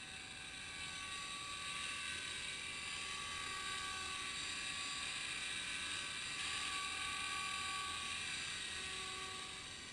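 Radio-controlled scale MD 500 helicopter built on an electric T-Rex 500 mechanism, hovering low: a steady high whine of motor and drive gears over rotor noise, swelling through the middle and fading near the end.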